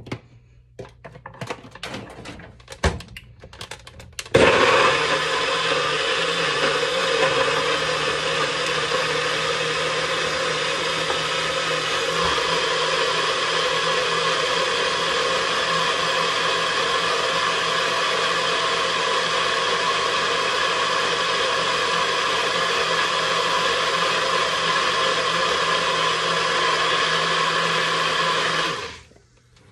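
NutriBullet personal blender pureeing chunks of papaya and onion with chicken stock, running steadily for about 25 seconds before stopping abruptly near the end. A few clicks and knocks come in the first seconds, before the motor starts.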